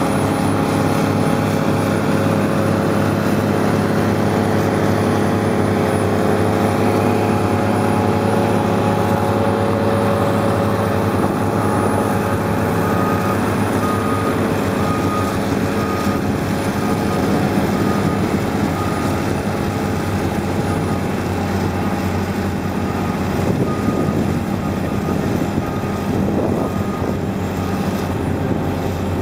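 Crawler dozer's diesel engine running steadily and loudly. A backup alarm beeps about once a second through the second half.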